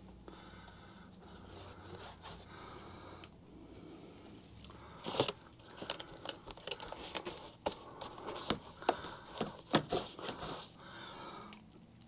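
Gloved hand working duct mastic onto the foil-faced seams of an air handler: rustling and crinkling of the foil and glove, with a run of sharp clicks and taps from about halfway through.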